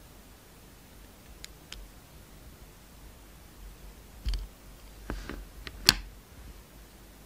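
A snap-off utility knife blade slicing through a lipstick bullet: a few faint clicks, then a cluster of short clicks and taps between about four and six seconds in, the sharpest just before six seconds.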